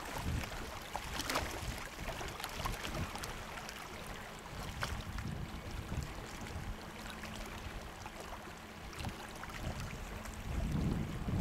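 Wind buffeting the microphone over water lapping against a small fishing boat's hull, with a few light knocks against the boat.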